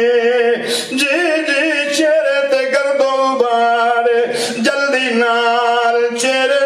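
A man chanting into a microphone in a drawn-out sung melody with long, wavering held notes and no instruments: the sung passage of a zikr-e-Ahl-e-Bayt recitation.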